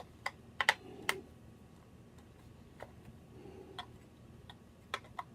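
About ten scattered, irregular sharp clicks and clacks of small hard objects being handled: loose batteries knocking together while someone hunts through them for AA cells.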